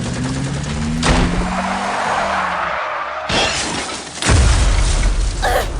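Dramatic sound effects: a car's engine and tyres skidding, then a crash with glass shattering about a second in, and a heavy low boom about four seconds in.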